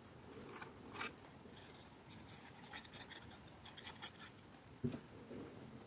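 Faint scratching and light ticks of card being handled and a glue bottle's nozzle drawn across the back of a card butterfly, with one sharper tap near the end.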